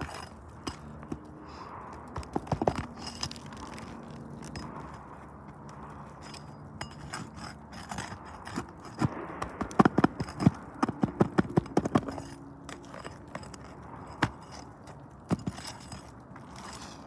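Flat steel pry bar knocking and scraping under asphalt shingles as the tabs are pried up, heard as scattered sharp taps that come in clusters, the busiest stretch in the middle.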